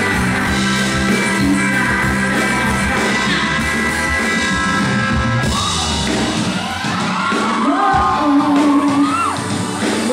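Live band music with a female lead singer belting over bass guitar and keyboard. About two-thirds of the way through, the band's low end drops back and the voice carries on with sliding, ornamented notes.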